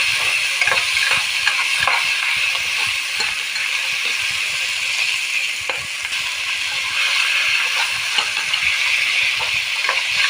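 Chopped tomatoes frying in oil with the onion and spice paste, a steady sizzle with many small crackles and ticks throughout.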